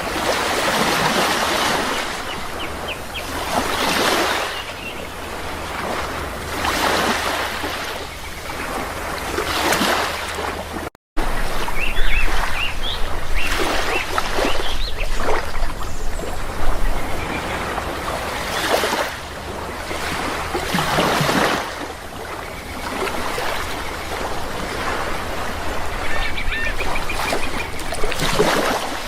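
Sea waves washing ashore in repeated surges every few seconds, with short bird calls over them now and then. The sound cuts out for an instant about eleven seconds in.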